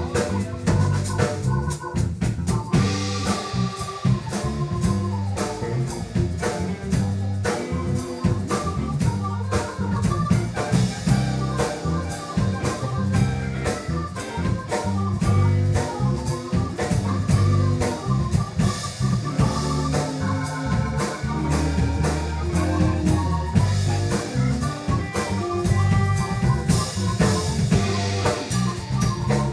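A live band playing an instrumental break without vocals: drum kit, electric bass and a keyboard with an organ sound taking the lead.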